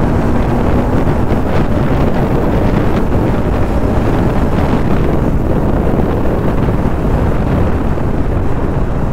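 Heavy wind rushing over the microphone of a moving Bajaj Pulsar NS200 motorcycle, steady throughout, with the bike's engine and road noise running underneath.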